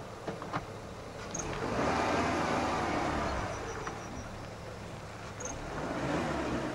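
A motor vehicle passing, its noise swelling about a second and a half in and again, more weakly, near the end. Two sharp clicks come just before the first swell.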